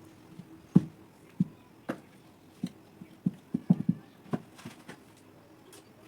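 A series of about a dozen irregular knocks and clicks over about four seconds, hard objects tapping or being set down on a hard surface, the loudest about a second in and a cluster near the middle.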